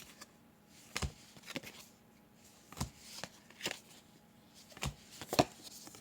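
Baseball trading cards being flipped through by hand: a series of short, sharp card flicks at irregular intervals, about one a second.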